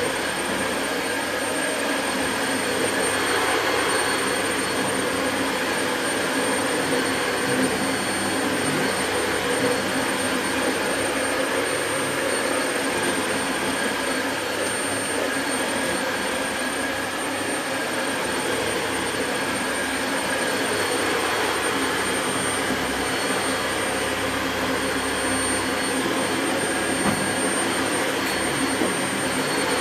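Dyson Light Ball Multi Floor upright vacuum cleaner running steadily while vacuuming, a constant rushing suction noise with a thin high whine over it.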